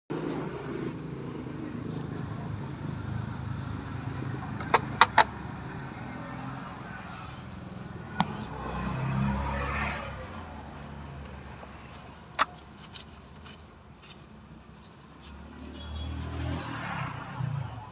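Suzuki DA64's small three-cylinder engine running with a steady low rumble that swells louder twice. There are three sharp clicks about five seconds in and single clicks later on.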